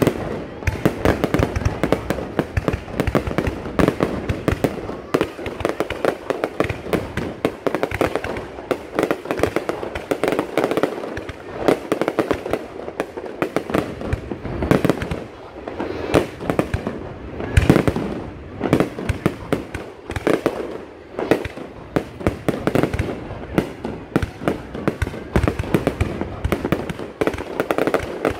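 Aerial fireworks display: a dense, continuous barrage of bangs and pops from shells bursting overhead, with louder booms now and then.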